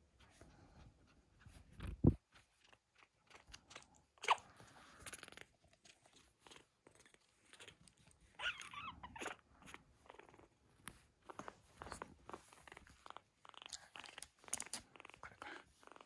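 A Siamese-tabby kitten nosing and rubbing its fur against the phone microphone: close, scratchy rustling and crackling, with a thump about two seconds in and a couple of short high squeaks near four and eight seconds in.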